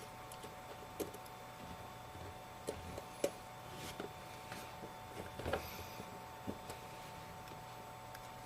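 Faint, scattered clicks and taps of a precision screwdriver and tiny screws handled while screwing a phone's internal metal plate back in place. A steady faint hum runs underneath.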